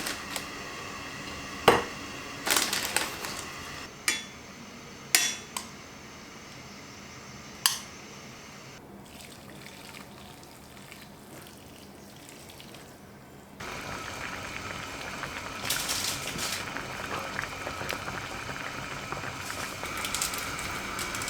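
Kitchen cooking sounds: several sharp clinks and knocks of utensils against dishes or a pot, then, about two-thirds of the way through, a steady bubbling of liquid cooking in a pot begins suddenly.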